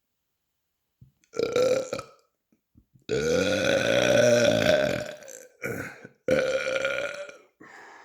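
A man belching loudly several times in a row: a short burp, then one long drawn-out burp of about two and a half seconds, then two shorter ones, the last trailing off.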